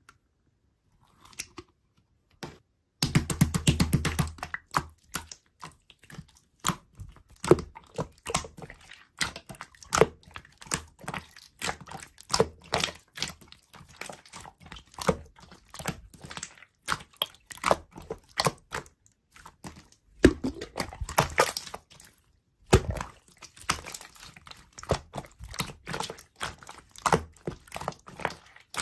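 Slime being squeezed and pressed by hand: dense, rapid sticky crackling and popping clicks that start about three seconds in and run on with a few short pauses.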